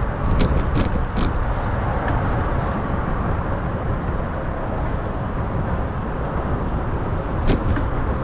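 Wind rumbling on the camera microphone of a moving bicycle, mixed with city traffic noise. A few sharp clicks come in the first second or so, and a louder one about seven and a half seconds in.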